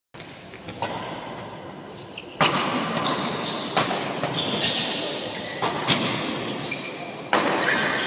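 Badminton rackets striking a shuttlecock in a fast doubles rally: about six sharp hits, the loudest a little over two seconds in and near the end, echoing in a large hall over a steady murmur of spectators.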